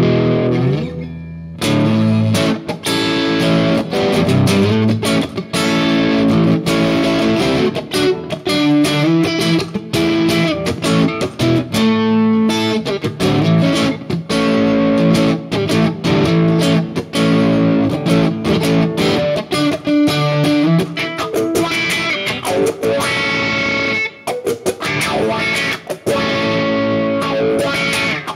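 Electric guitar played through a Headrush Prime modeler on a front-of-house preset built on its Vox AC30 amp model. A chord rings for the first second and a half, then a steady run of quickly picked riffs and lines follows.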